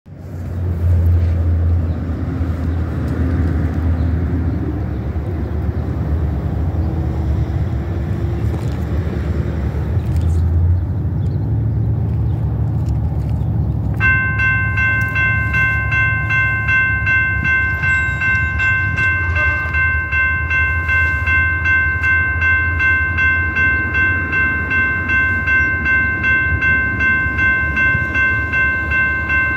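Railroad grade-crossing bell starting about halfway through and ringing steadily with regular strokes, as the crossing signals activate for an approaching train. Before the bell, a loud, steady low rumble.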